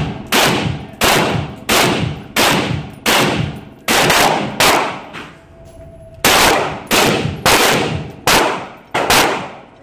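Belt-fed DPM (Degtyaryov) machine gun in 7.62×54R firing single shots in a steady string, about a dozen at roughly one every 0.7 seconds, with a pause of over a second about halfway through. Each shot echoes and rings off the walls of the indoor range.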